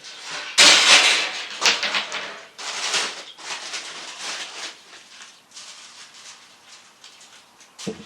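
Rustling and scraping handling noise, loudest for a few seconds from about half a second in, then quieter rustling.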